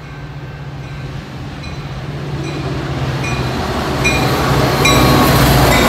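Metra diesel locomotive approaching and drawing near, its engine hum and the train's rumble growing steadily louder. A bell-like tone strikes about every second from a couple of seconds in, typical of the locomotive's bell ringing on a station approach.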